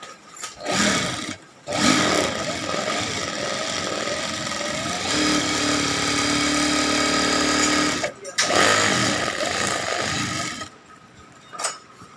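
Jack JK-609S large-hook industrial lockstitch sewing machine stitching through fabric strips. It runs in a short burst near the start, then sews continuously for about nine seconds with a brief stop about eight seconds in, a steady hum rising in the middle, and stops about eleven seconds in.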